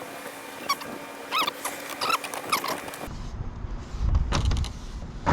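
Short chirping calls, then after an abrupt change about three seconds in, a low rumble with a few sharp clicks and knocks.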